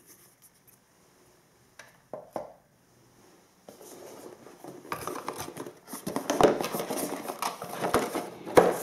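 Cardboard box packaging and paper being handled: a few light clicks, then, about four seconds in, continuous rustling and scraping with sharp knocks as the box insert and papers are pulled out of the box.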